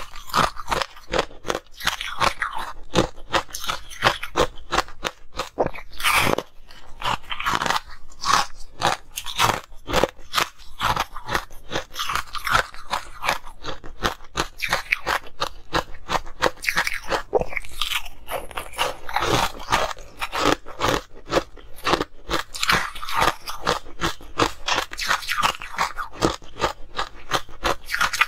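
Close-up crunching and chewing of frozen ice, many sharp crunches in quick succession as the ice is bitten and ground between the teeth.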